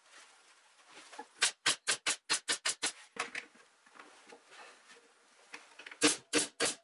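Pneumatic upholstery staple gun firing staples through jute webbing into the chair's wooden seat rail: a quick run of about seven shots, then, near the end, four more loud shots in quick succession.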